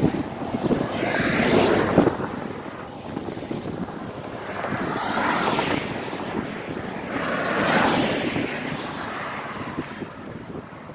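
Road traffic passing close by, cars swishing past in three swells a few seconds apart, with wind buffeting the microphone.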